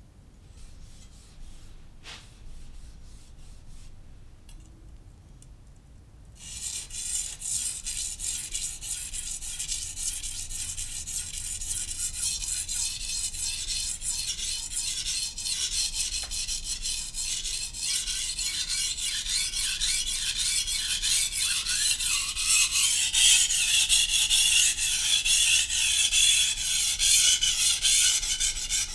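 Steel knife blade stroked rapidly back and forth on a wet Naniwa Professional 600-grit whetstone, a steady rasping scrape. The first six seconds or so hold only a few faint strokes, then brisk continuous strokes start and grow louder.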